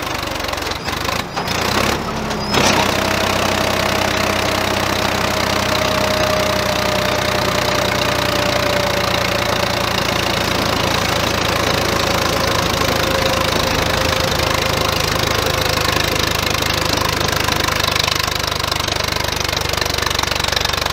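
Swaraj 963 FE tractor's three-cylinder diesel engine running steadily under load as its wheels dig into sand, getting louder about two and a half seconds in. A faint whine slowly falls in pitch over the following seconds.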